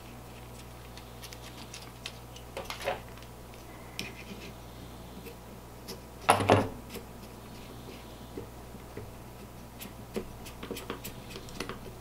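Small clicks and scrapes of plastic and metal camera accessories being handled and fitted together on a DJI Osmo gimbal, with one louder knock about six seconds in and a run of quick clicks near the end. A steady low hum runs underneath.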